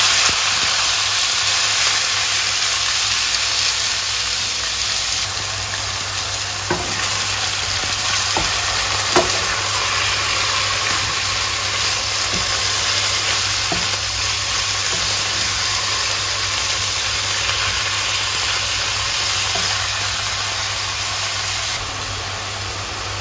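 Strips of chicken breast sizzling steadily in hot oil in a pan while being stirred with a wooden spatula, with a few faint knocks of the spatula against the pan.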